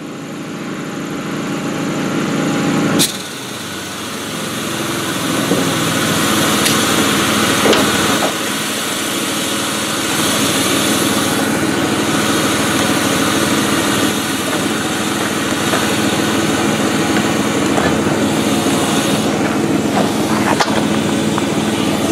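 Small gasoline engine of a portable air compressor running steadily, building up over the first three seconds to a sharp click, then running on evenly. A few light knocks come over it.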